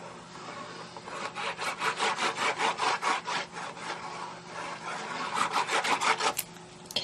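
Tombow glue applicator rubbed back and forth across cardstock in quick, rhythmic scratchy strokes, about four or five a second, spreading adhesive.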